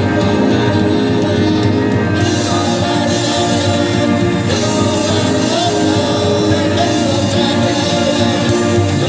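Live band playing a rock song: a woman singing over electric guitar and keyboards, with a steady, unbroken sound.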